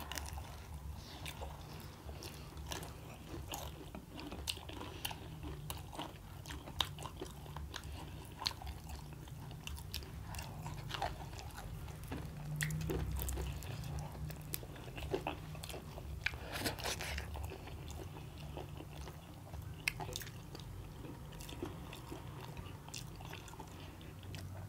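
Two people chewing and biting into large fried samosas, close to the microphone: irregular crisp crunches and clicks of the pastry as they chew.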